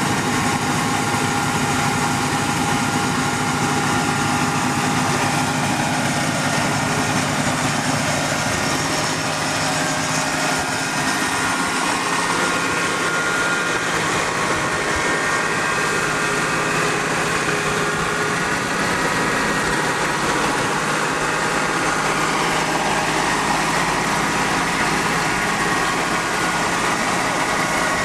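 Engine running steadily with an even hum and whine, driving a tractor-mounted hydraulic well-drilling rig.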